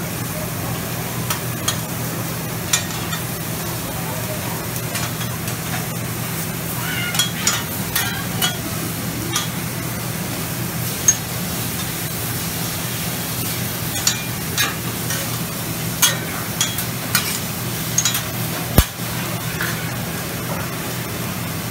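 Food sizzling on a large steel flat-top griddle, with metal spatulas clacking and scraping against the plate at irregular moments, over a steady low hum.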